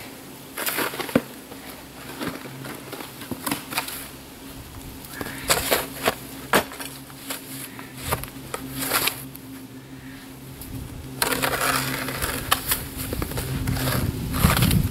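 Snow shovel scooping and crunching through packed snow in irregular strokes, with a longer stretch of crunching and scraping near the end. A faint steady low hum runs underneath.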